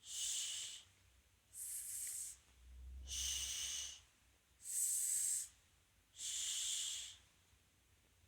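A man's voice drawing out isolated hissed sibilants, alternating the emphatic Arabic ṣ (ص) with the plain s (س): five hisses about a second each, the emphatic ones deeper.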